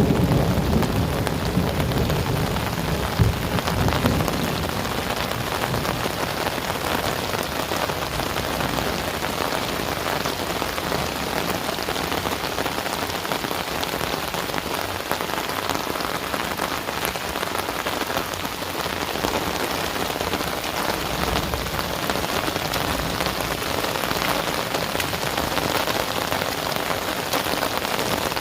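Heavy rain falling steadily on surfaces. The last of a low thunder rumble fades out in the first few seconds.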